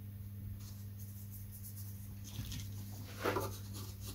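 Faint rustling and light knocks of a quarter-inch square wood strip being handled and laid against the wooden fuselage formers, with one louder brush-and-knock about three seconds in, over a steady low hum.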